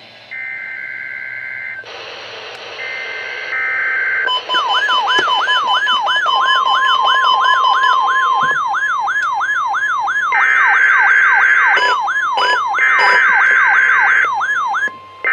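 NOAA Weather Radio test alert: short warbling data bursts of the SAME digital header in the first few seconds. From about four seconds a weather-alert receiver's siren sweeps up over and over, a little over twice a second, over the steady 1050 Hz weather-radio warning alarm tone. More header bursts cut in near the end.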